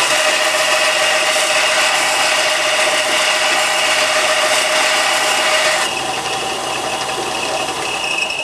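A 4x36 belt sander running with a turning skew chisel held to the belt, the steel grinding on the abrasive with a steady whine and hiss as the bevel is reground to a convex edge. About six seconds in the grinding hiss eases off while the sander keeps running.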